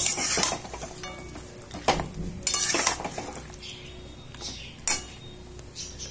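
Metal spatula scraping and clanking against a metal kadai as mutton curry is stirred, in about five irregular strokes. The meat is being fried down with the spice masala (kosha).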